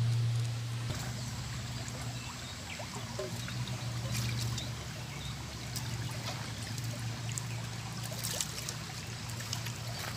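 A shallow river running over stones, a steady flowing and trickling, with a low steady hum underneath and a few light clicks.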